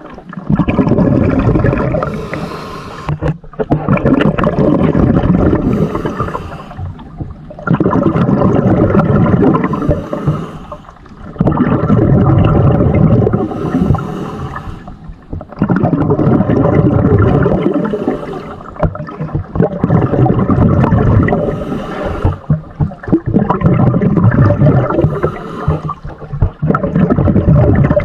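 Muffled water sloshing and gurgling around a camera worn by a diver, coming in loud surges about every three to four seconds.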